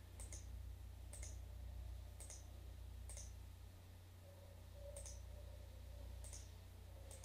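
Computer mouse button clicking: six faint single clicks, roughly one a second with a longer pause before the fifth, over a low steady hum.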